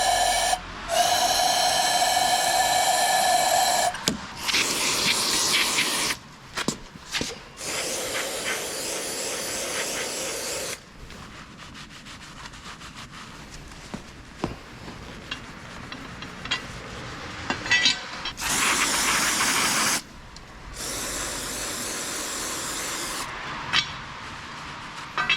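A power tool whines steadily for about four seconds and stops. Then come several bursts of spraying hiss, each lasting one to several seconds, with scattered clicks and knocks of tools on metal between them.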